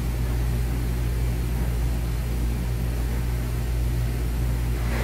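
Steady low mechanical hum with an even rushing noise over it, the running background of commercial kitchen equipment around a gas range.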